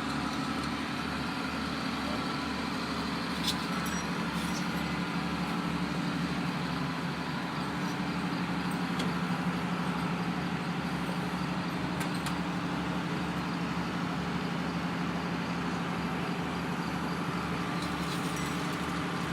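An engine running steadily at idle, a constant hum with an even low throb.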